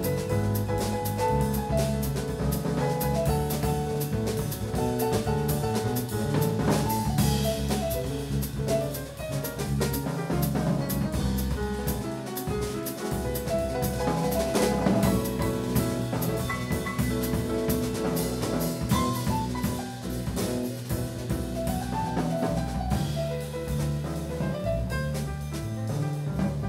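Small jazz group playing live: piano, electric bass guitar and drum kit, with a moving bass line and busy cymbal and drum strokes.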